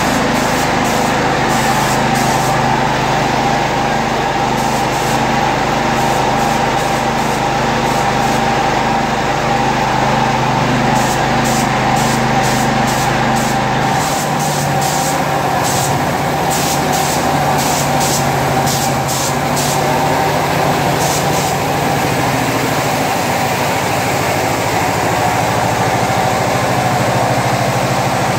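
Steady hum of an air compressor running, its low tone shifting about halfway through, with repeated short hisses from an air spray gun laying paint.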